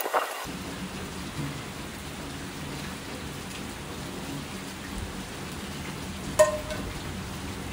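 Steady rain hiss, with a single metallic clank about six and a half seconds in that rings briefly: a stainless steel frying pan knocking against a metal mesh picnic table.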